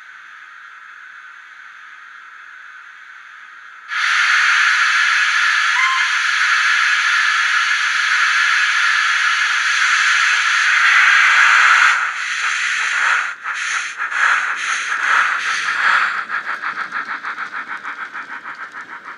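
Recorded steam-locomotive sounds from a Loksound 5 micro DCC sound decoder playing through a small sugarcube speaker in a Bachmann Thomas the Tank Engine model: a faint steady hiss, then about four seconds in a sudden loud steam hiss that holds for some eight seconds. The hiss then breaks into uneven chuffs that settle into a quick, even exhaust beat as the engine moves off, fading toward the end.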